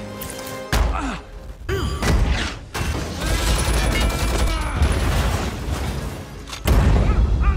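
Film action sound effects: heavy crashes and booms of smashing, exploding metal wreckage, with film score under them. The biggest hits come about a second in, about two seconds in, and again near the end.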